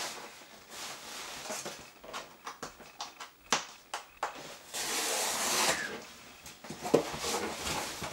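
A small accessory box and its packaging being opened by hand: scattered clicks and taps, with a longer rustle about five seconds in.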